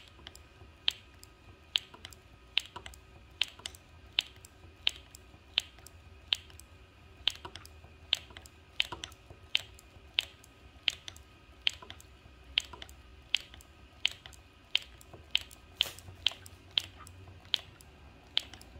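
Motorcycle front brake lever being pumped over and over to bleed air out of a freshly rebuilt, still-soft master cylinder: a sharp click with each stroke, a bit more than one a second.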